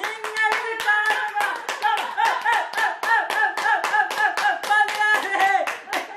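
Steady rhythmic hand clapping, about five claps a second, with a voice chanting along to cheer on an eater.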